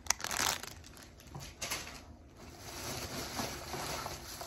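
Plastic packaging of craft supplies rustling and crinkling as it is handled and set aside. There is a short louder crinkle right at the start, then soft, uneven rustling.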